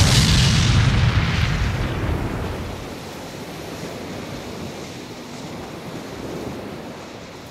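The rumbling tail of a big explosion effect, as of a ship blowing up at sea, fading out over the first two to three seconds. After that a steady wash of ocean waves and wind carries on.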